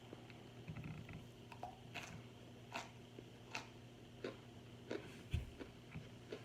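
Mouth-close crunching and chewing of microwaved cornstarch chunks: separate crisp crunches about one a second, with a dull thump about five seconds in, over a low steady hum.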